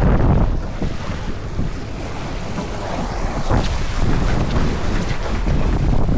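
Wind buffeting the microphone over water rushing along a sailboat's hull as it sails, with a louder surge at the start and a short splash about three and a half seconds in.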